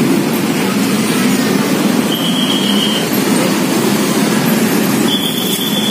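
Steady rumble of vehicles moving across a railway level crossing, with two short high-pitched squeals, one about two seconds in and one near the end.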